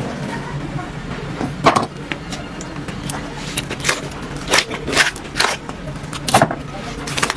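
A knife cutting and scraping through the thick skin and flesh of a giant ocean sunfish: a series of short scrapes, one about two seconds in, a quick run in the middle and another near the end, over a steady background hum.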